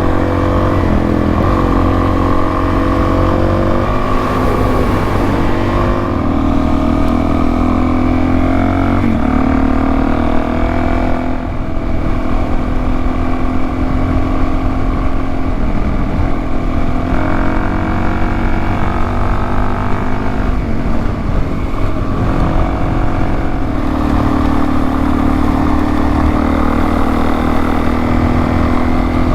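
Suzuki DR-Z400S single-cylinder four-stroke engine running under way. Its pitch rises and drops several times as the rider works the throttle and shifts gears.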